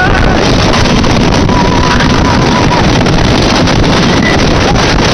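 Loud, steady rush of wind buffeting the microphone as a rider on the Tonnerre de Zeus wooden roller coaster travels at speed. A faint held high note comes through the rush about two seconds in.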